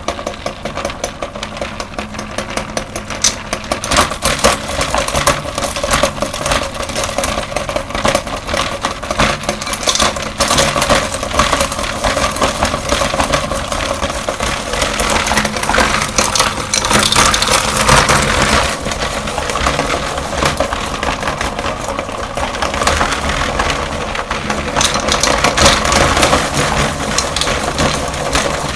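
Electric meat grinder motor running steadily while grinding candy, with a dense crackling and crunching of pieces breaking up inside it.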